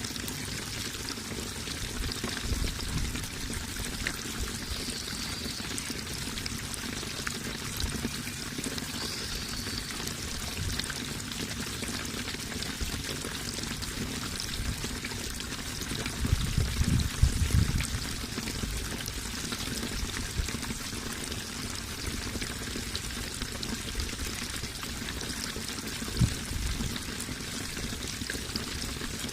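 Water running and pouring steadily, a continuous even rush. A low rumble swells up for a couple of seconds just past halfway, and again briefly near the end.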